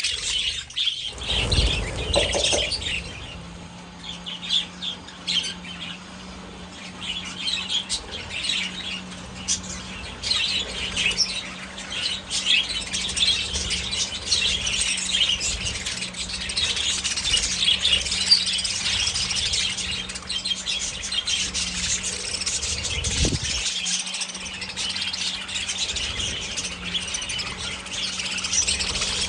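A large flock of budgerigars chirping and chattering all at once, a dense, continuous twitter of many overlapping calls, with a steady low hum beneath and a few low thumps.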